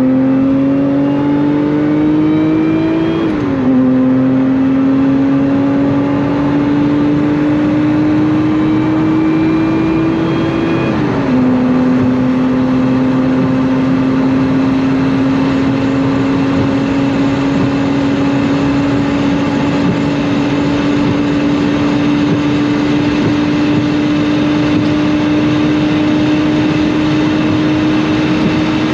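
Lotus Emira's supercharged 3.5-litre V6 under full-throttle acceleration through a six-speed manual, heard from inside the cabin: the engine note climbs, drops with an upshift about three seconds in and another about eleven seconds in, then rises slowly in fifth gear at high speed, over steady road and wind noise.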